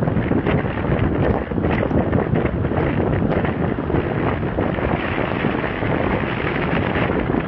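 Wind rushing over a phone's microphone from a moving car, a steady loud buffeting with road noise beneath.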